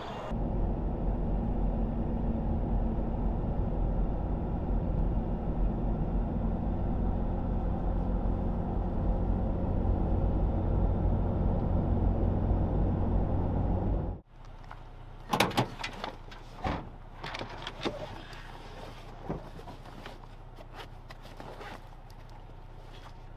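Toyota Tacoma pickup driving at about 35 mph: steady engine and road drone. About fourteen seconds in it cuts off, and gear is handled in a truck-bed storage drawer: a string of irregular knocks and rattles.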